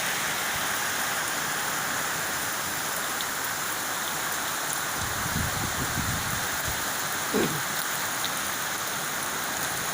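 Heavy rain pouring steadily in a windy thunderstorm. There is a low rumble about halfway through and a brief falling tone shortly after.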